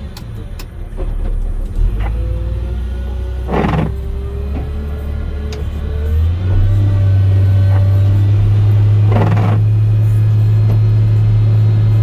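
Volvo L70F wheel loader's diesel engine heard from inside the cab as the loader plows slush. It runs steadily, then about six seconds in revs up to a higher, louder speed and holds there. Faint whines come and go, and two short hissing bursts sound midway and near the end.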